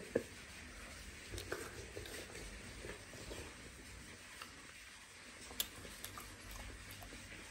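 Quiet room tone with a low hum and a few faint scattered clicks, the clearest about five and a half seconds in.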